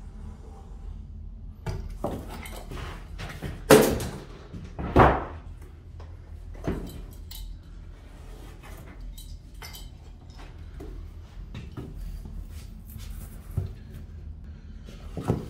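Vinyl flooring planks being handled and laid on a subfloor: scattered clicks, taps and knocks, with two louder knocks about four and five seconds in.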